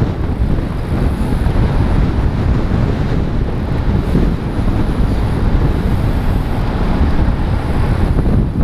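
Steady wind noise buffeting a helmet-mounted GoPro in an open skeleton housing, as it moves at road-race speed among a pack of bicycles. A dense, even rumble, strongest in the low range.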